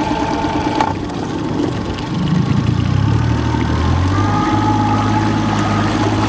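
Mercury tiller-steered outboard motor running. It speeds up about two seconds in as the boat gets under way, then holds a steady pitch.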